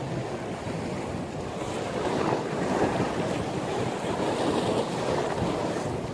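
Ocean surf rushing and breaking in a strong windstorm, with wind buffeting the microphone. The wash of water swells louder about two seconds in and eases near the end.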